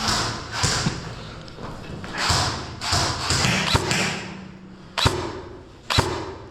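DE Armory M906D airsoft rifle firing single shots, about eight irregularly spaced shots, each with a short echo.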